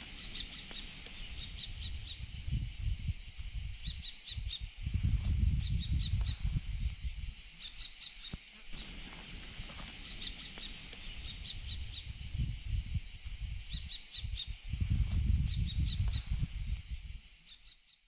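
Outdoor field ambience: wind rumbling on the microphone in gusts, strongest about five seconds in and again near the end, over a steady high hiss and short runs of high chirps that recur throughout.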